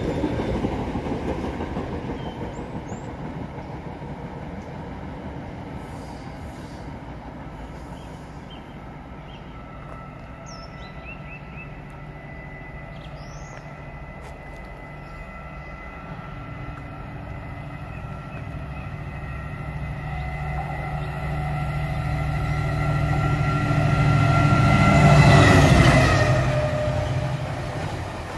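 Freight trains on a main line. The rumble of wagons passing on the far track fades away over the first several seconds. Then a second freight train approaches on the near line, its locomotive's hum and steady high whine growing louder. It passes close about 25 seconds in with a drop in pitch, and its box wagons rumble by.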